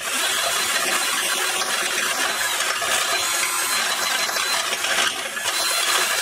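Cordless drill with a 3/4-inch bit reaming out a slightly undersize hole in square steel tubing; it starts suddenly and runs steadily, the bit cutting against the steel.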